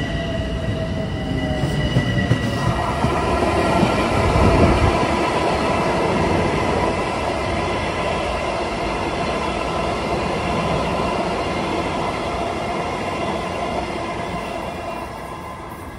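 Long Island Rail Road train running through the station, a continuous rail rumble with steady high whines above it. It grows louder over the first few seconds, then slowly fades near the end.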